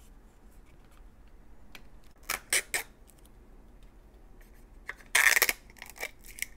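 Plastic Zuru 5 Surprise capsule being handled and opened: three sharp plastic clicks about two and a half seconds in, then a brief loud tearing rustle about five seconds in as a printed sticker seal is peeled off a compartment, with lighter clicks after.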